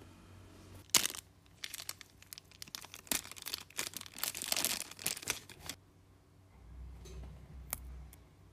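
Small plastic zip bag crinkling as it is pulled open and handled, starting with a sharp crackle about a second in and lasting about five seconds, then stopping.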